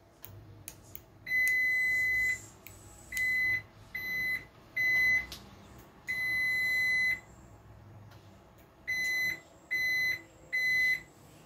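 DESI alarm system sounder giving high, steady electronic beeps as it is worked with its remote key fob: one long beep, three short ones, another long one, then three short ones, with a few faint clicks just before.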